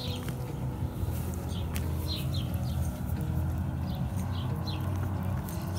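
Small birds chirping in short, repeated high notes over a steady low rumble, with a few faint clicks.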